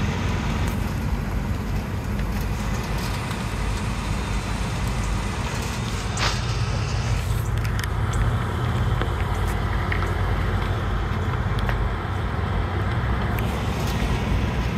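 Cars driving on a road: a steady low rumble of engine and road noise.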